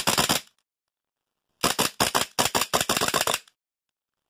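Tokyo Marui gas blowback 1911 airsoft pistol with a Guarder aluminium slide and frame, fired fast, each shot a sharp crack of gas and the slide cycling. A quick few shots at the very start, then after a pause a rapid string of about ten shots in under two seconds.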